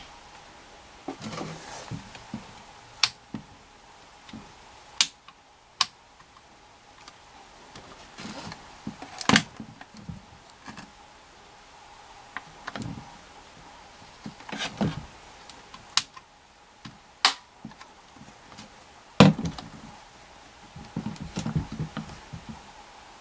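Scattered sharp clicks and knocks of hard plastic being handled: the ear flaps moved and the hinged cap over the nose light snapped open and shut on a plastic toy radio. About a dozen separate clicks come at irregular intervals, with light rubbing between them.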